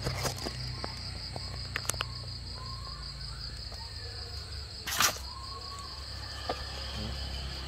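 Crickets chirping steadily over a low steady hum, with a few faint clicks and one brief sharp noise about five seconds in.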